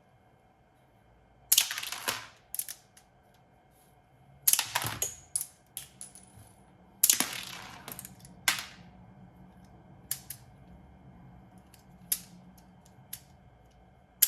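Plastic clicks and snaps from a rubber-band-powered LEGO toy revolver being worked and fired. Four loud, sharp snaps come in the first nine seconds, with lighter mechanism clicks between and after them.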